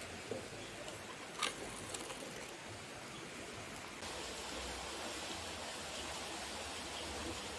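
Steady rushing noise of a waste-oil-fired furnace melting aluminium, with one sharp metallic knock about one and a half seconds in as the steel skimmer strikes the crucible. The rushing gets slightly louder about four seconds in.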